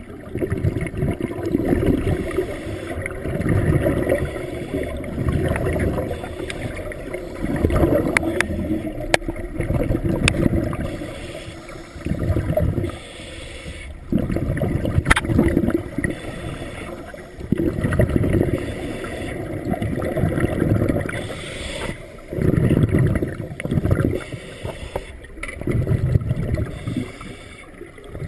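Scuba diver breathing through a regulator underwater: exhaled bubbles rumble out in bursts every two or three seconds, with a few sharp clicks in between.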